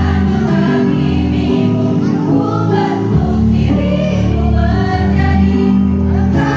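Women's choir singing together over instrumental accompaniment with steady bass notes.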